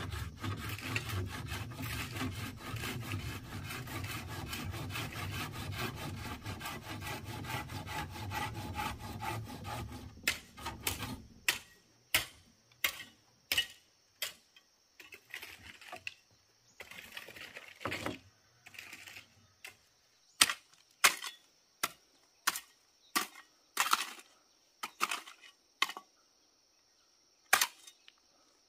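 Hand saw cutting through a wooden rail with quick, steady strokes for about eleven seconds. Then a series of separate sharp knocks on wood, some of them loud, hammer blows.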